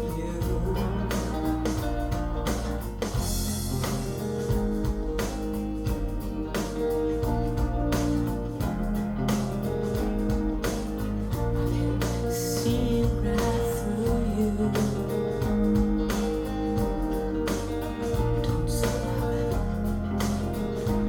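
Instrumental passage of a band song with a steady drum beat and bass line, played back through Q Acoustics 3020 bookshelf speakers.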